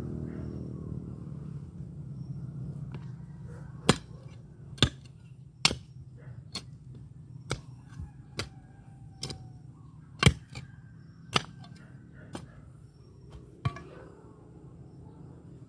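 A hand digging tool struck into the ground about a dozen times at an uneven pace, each blow a sharp knock. A passing vehicle's engine fades away in the first couple of seconds.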